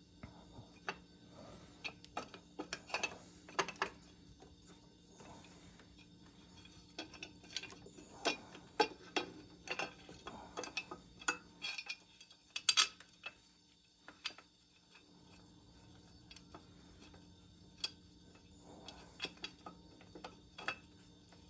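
Irregular metal clicks and clinks of a wrench working on a mounting bolt that is binding, as it is backed out. The loudest clusters of clicks come about 8 and 13 seconds in.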